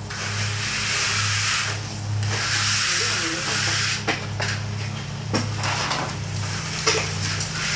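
Gritty scraping of a steel hand trowel pushing epoxy-coated pebbles across the floor, in strokes lasting a second or two, with a few sharp clicks of stones. A steady low hum sits underneath.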